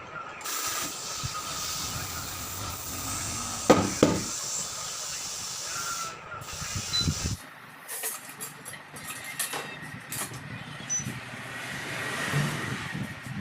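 Compressed air hissing steadily from an air line, with a sharp knock about four seconds in; the hiss cuts off about seven seconds in, followed by scattered clicks and rattles of tools.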